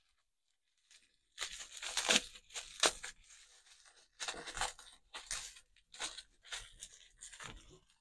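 Bubble wrap being pulled apart and unwrapped by hand from a padlock: irregular crinkling and tearing bursts starting about a second and a half in.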